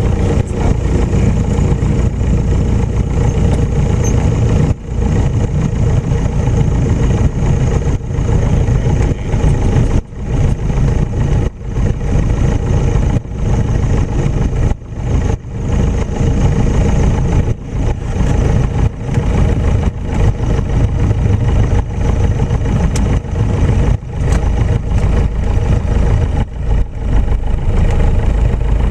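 Piper light aircraft's piston engine running steadily, heard from inside the cockpit: a dense low rumble with a steady hum, dipping briefly in loudness now and then.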